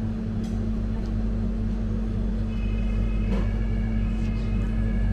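Steady low machine hum from a refrigerated gelato display case, with a few faint clicks. A thin high whine joins about two and a half seconds in.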